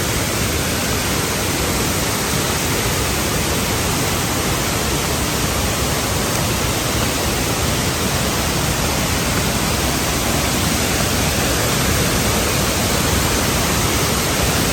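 Small waterfall on a feeder stream pouring steadily at high flow after heavy rain: a dense, even rush of water that grows slightly louder near the end.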